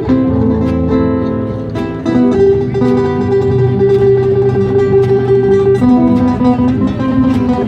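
Acoustic guitar music: plucked and strummed notes ringing on, with the harmony changing every second or two.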